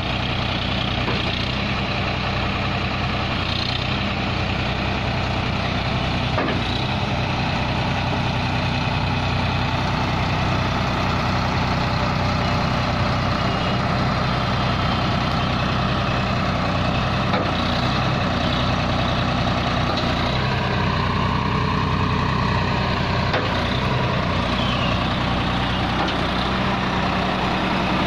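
Tractor's diesel engine running steadily at an even speed.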